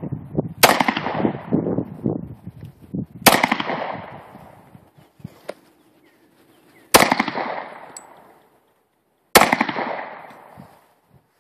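SIG Sauer P229 pistol fired four times at uneven intervals, each shot followed by a long fading echo.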